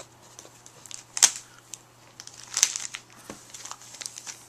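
Cardboard packaging and a plastic bag being handled: crinkling and rustling, with two louder sharp crackles about a second in and again about two and a half seconds in.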